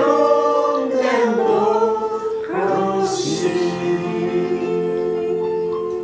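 Small mixed choir of men and women singing in harmony, the final chord held from about halfway and starting to fade at the end.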